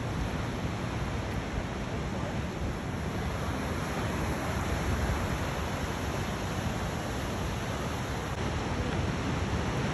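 Ocean surf breaking and washing on the rocks below, mixed with wind buffeting the microphone. It is a steady rushing noise with no breaks.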